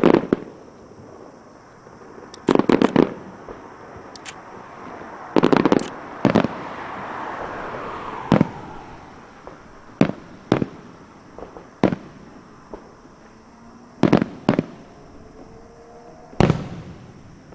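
Aerial fireworks shells bursting, about a dozen sharp bangs, some coming in quick clusters of two or three. A crackling hiss from the bursts swells in the middle.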